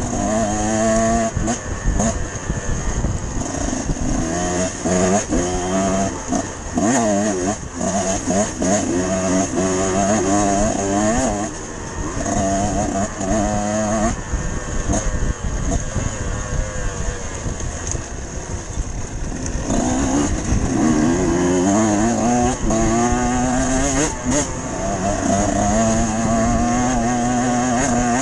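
Dirt bike engine running under the rider on a rough trail, its revs rising and falling with throttle and gear changes, with a few sharp knocks along the way.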